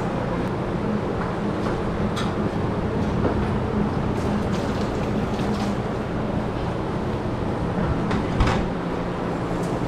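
Steady low machine hum under a noisy room background, with a few light clicks and a brief knock near the end.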